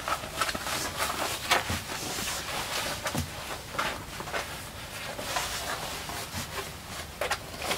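Half-width kimono obi being wrapped around the waist and pulled off again: cloth rustling and brushing in short irregular strokes, the loudest about a second and a half in.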